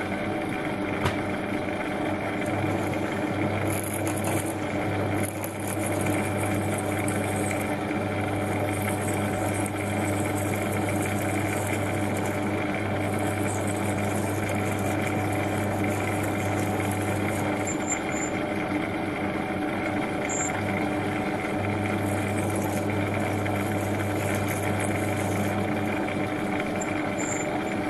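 Metal lathe running steadily, its motor and gears humming, while an M35 cobalt twist drill in the tailstock bores into stainless steel held in the spinning four-jaw chuck. A high hiss from the cutting comes and goes, and the low hum drops out briefly about two-thirds through.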